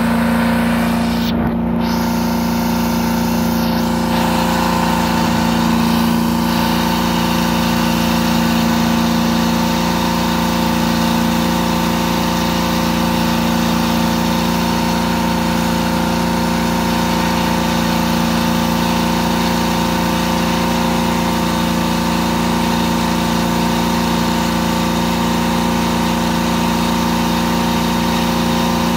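Truck-mounted carpet-cleaning machine running steadily at constant speed: an even engine hum with a steady higher tone that does not change.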